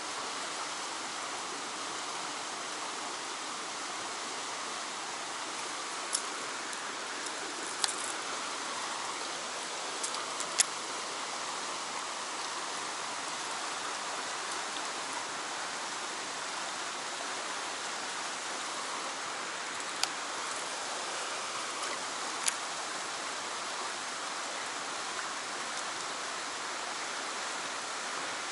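A stream rushing steadily through a narrow rock channel, with a few sharp clicks now and then.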